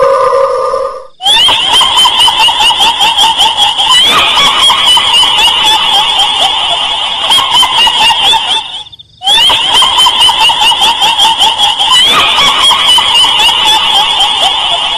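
High-pitched, rapid cackling laugh sound effect, repeating in a loop with a brief break about nine seconds in.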